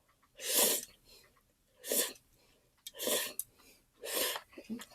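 A person's short, forceful breaths, four of them about a second apart, as they huff against the burn of spicy fire noodles.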